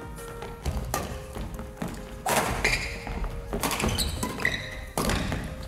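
Badminton rally: a series of sharp racket hits on the shuttlecock and thudding footfalls on a wooden gym floor, over background music.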